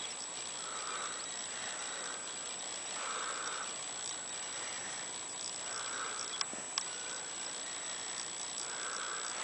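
A person snoring in slow, regular breaths, four breathy snores about two and a half seconds apart. A faint steady high whine runs behind them, and two small clicks come a little past the middle.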